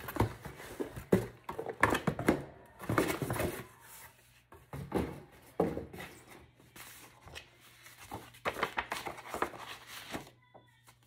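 Cardboard shipping box and paper packaging being handled: irregular rustling, scraping and light knocks as the box flaps are folded, a boxed item is lifted out and set down, and paper is unfolded.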